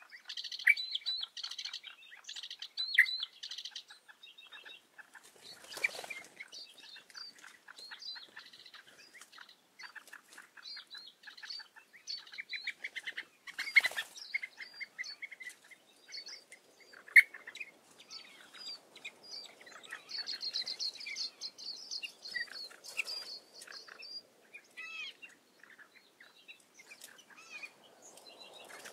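Several small songbirds singing and calling at once: overlapping chirps, rapid trills and whistles, with a dense, fast trilled song about twenty seconds in. Two brief rushes of noise come about six and fourteen seconds in.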